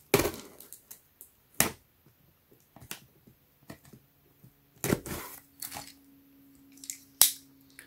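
Utility knife cutting along the packing-tape seam of a cardboard shipping box: irregular short scrapes and sharp clicks, with cardboard rustling under the hands. The strongest scrapes come around five seconds in and a sharp click near seven seconds.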